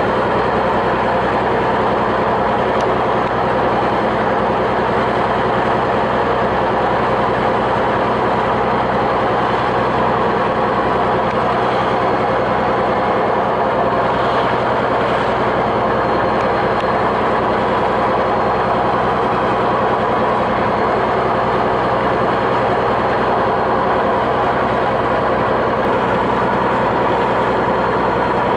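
Fishing boat's diesel engine running steadily at sea, a constant loud drone.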